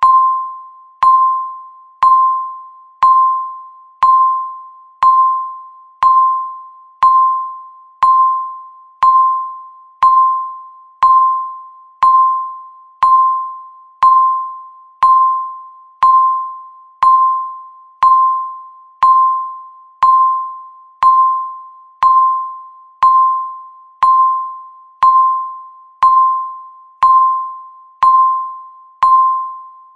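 Electronic countdown-timer beep, a short pure tone repeated once every second, each sounding sharply and fading away.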